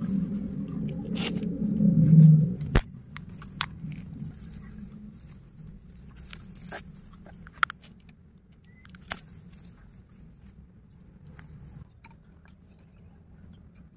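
Hands working bonsai wire off a tree, with scattered small metallic clicks and snips from the wire and a wire cutter. For the first three seconds a loud low rumble sits underneath, and it stops with a click.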